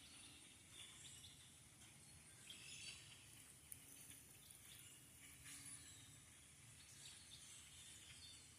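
Faint chorus of scattered chirps and calls from a large flock of black birds moving through trees, over a steady hiss.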